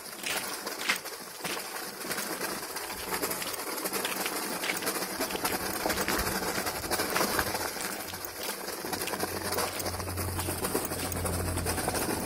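Cardboard toy truck on small wooden wheels being pulled on a string over gravel, its wheels and box crunching and rattling on the stones in a continuous clatter of small clicks.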